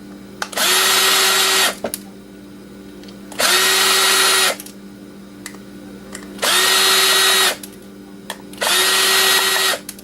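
Power drill driving out the small screws that hold a hard drive's controller board, in four short runs of about a second each, its motor whine rising briefly as each run starts.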